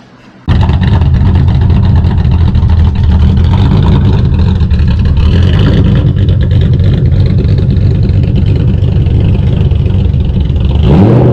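A car engine running loud and steady, then revving up near the end.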